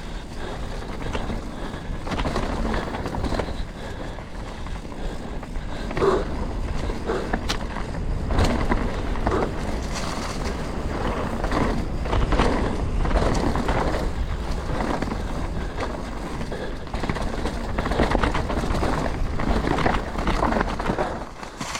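Canyon Spectral 125 full-suspension mountain bike riding down a rough trail: tyres rolling over dirt and rocks with frequent knocks and rattles from the bike, over a steady low rumble.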